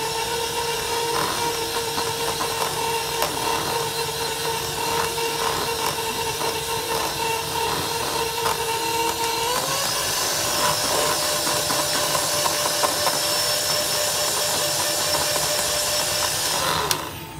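Handheld electric mixer beating ube cream frosting in a bowl. The motor spins up with a rising whine and runs steadily, with the beaters ticking against the bowl. About nine and a half seconds in it steps up to a higher speed, then winds down and stops near the end.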